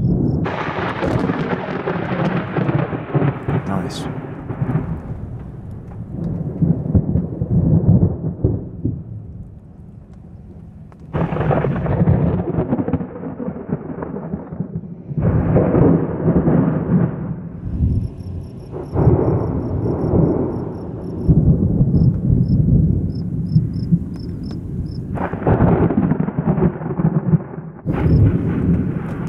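Thunder from close cloud-to-ground lightning: about six loud claps, each starting suddenly and rolling on as a long rumble.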